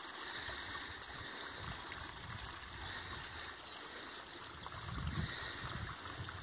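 Steady rush of running water from a nearby stream, with a swell of low wind rumble on the microphone about five seconds in.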